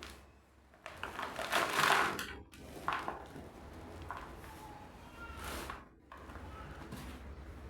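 Chalk being crumbled and crushed by hand: dry, gritty crunching in uneven bursts, loudest for about a second and a half near the start, with smaller crunches a few seconds later.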